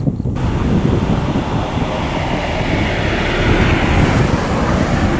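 Low rumbling of a railway car rolling slowly, with wind buffeting the microphone.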